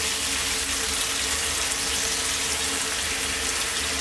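Stir-fried goat heart strips sizzling steadily in a hot frying pan as the reserved boiling liquid goes in and heats up.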